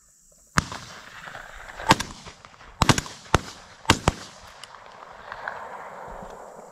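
A volley of about seven shotgun shots from several hunters firing at doves overhead. The shots fall between about half a second and four seconds in, some pairs nearly on top of each other, each followed by a short rolling echo.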